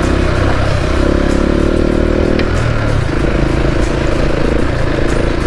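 KTM 690 Enduro's single-cylinder four-stroke engine running under way on a dirt road, its note shifting about halfway through. Tyre noise runs underneath, with small scattered clicks and rattles from the gravel surface.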